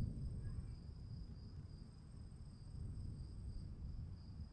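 Low rumble of distant thunder, loudest at the start and easing off within about a second, under a steady high trilling of crickets.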